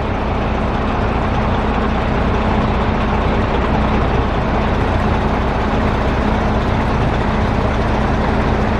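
Steady motor-vehicle noise: an engine running with a low rumble and a constant hum under an even wash of road or traffic noise.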